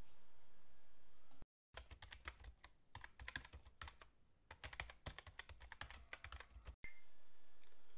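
Typing sound effect: a run of quick, irregular key clicks lasting about five seconds, starting and stopping abruptly with a moment of dead silence on either side.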